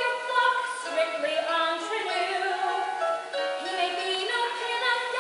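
Live singing of a musical-theatre song, one voice carrying a melody that moves from note to note.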